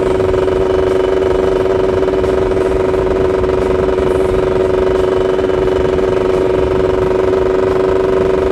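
Yamaha F1ZR's two-stroke single-cylinder engine running at a steady cruise, heard from the rider's seat, its pitch holding level throughout, with wind rush on the microphone underneath.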